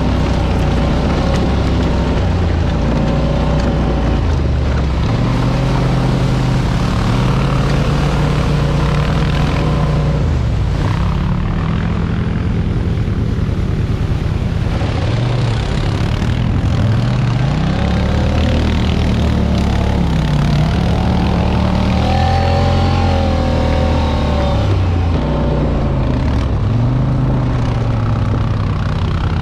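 Off-road vehicle engine running under load, its pitch rising and falling again and again as the throttle is opened and eased off.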